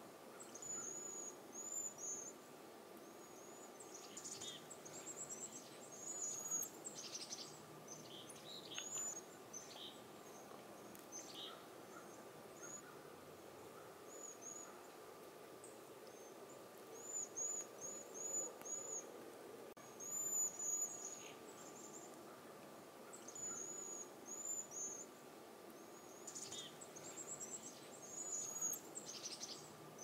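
A flock of cedar waxwings giving soft, high-pitched, trilled whistle calls in scattered clusters of short notes, with a faint steady hum underneath.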